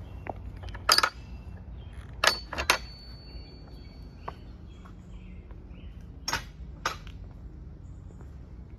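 Footsteps on a hard outdoor surface: five separate steps, spaced irregularly, over a low steady background rumble. A faint thin high tone is held for about two seconds, starting just after the third step.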